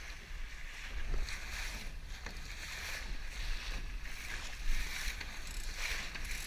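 Water rushing and splashing along a sailing dinghy's hull as it sails through chop, in repeated surges about once a second, over a low rumble of wind on the microphone.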